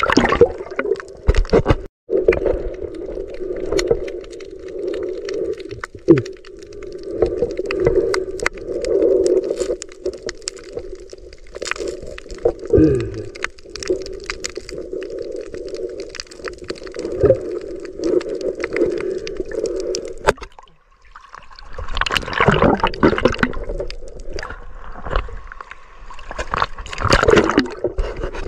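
Muffled underwater sound through an action camera's waterproof housing as the diver swims and handles a sea urchin: a steady low hum with scattered clicks and knocks. The hum stops about two-thirds through, and louder surges of rushing water noise follow.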